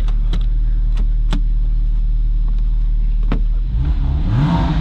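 2007 Porsche Cayman's 2.7-litre flat-six idling steadily, heard from inside the cabin, with a few sharp clicks in the first few seconds. Near the end the engine is revved twice, its pitch rising each time, and it runs well.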